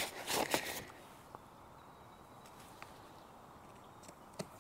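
Metal tent pegs and tent fabric being handled, rustling and scraping for about the first second, then quiet with a few faint ticks and a small click near the end as a peg is pushed by hand through a corner loop into the grass.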